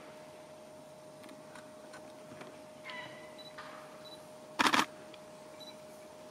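Camera shutter firing a quick burst of clicks, lasting about a third of a second, a little past halfway through. Under it runs a faint steady high hum.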